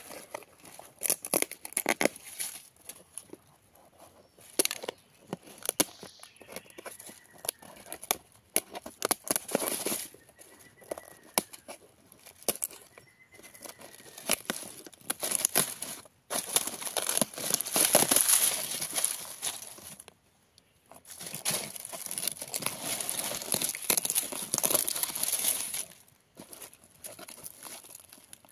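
Dry, brittle skin of a dried luffa gourd being cracked and peeled away by hand from the fibrous sponge: irregular crackling and tearing. Two long stretches of dense, continuous crackling come in the second half.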